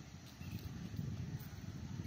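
Low, uneven rumble of wind buffeting the microphone, with the scuffing footsteps of the person filming.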